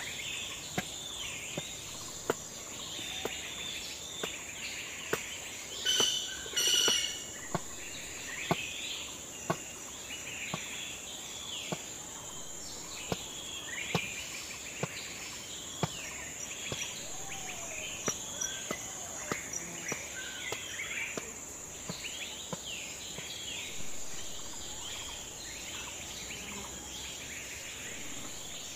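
Cleaver chopping through a peeled bottle gourd onto a wooden block, sharp knocks about once a second. Birds chirp throughout over a steady high insect hum, and two loud bird calls stand out about six seconds in.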